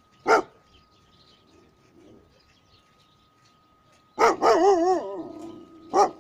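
Large chained dog barking: one bark, then a few seconds later a bark that runs into a drawn-out wavering cry about a second long, then another bark near the end.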